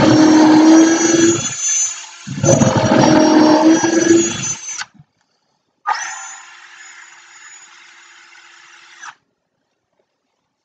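Cordless drill boring a bent twist drill bit into a 2x4 in two bursts, the drilling that straightens the bit. After a short pause the drill runs freely, spinning the bit in the air more quietly for about three seconds, then stops.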